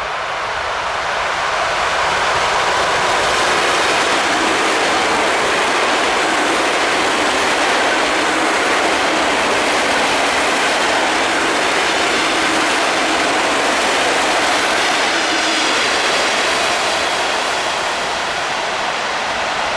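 ЭД4М suburban electric multiple unit passing at speed, a steady rush of wheels on rails that builds over the first couple of seconds and eases off near the end.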